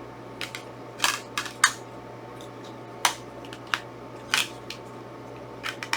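Scattered sharp plastic clicks and taps, irregular, from handling and opening disc cases, with a small cluster about a second in.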